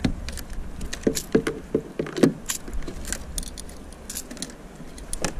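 Clicks, knocks and rattles of a landing net and fishing gear being handled on a kayak while a caught cuttlefish is taken out of the net, with a quick run of short squeaky knocks between one and two and a half seconds in.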